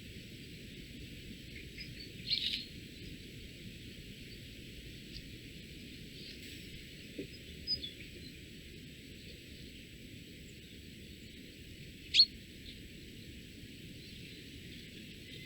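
Forest ambience with a steady faint hiss and a few short bird chirps: a brief one about two seconds in and a sharp, louder chirp that drops quickly in pitch near the end.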